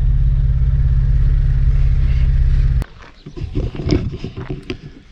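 4x4 vehicle engine running with a steady low drone, which cuts off suddenly a little past halfway. Quieter, irregular knocks and sounds follow.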